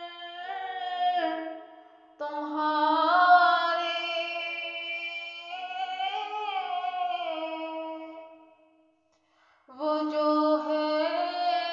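A female voice singing an Urdu nazm unaccompanied, in long held notes that bend and waver, with two short breaks, one early and one near the end.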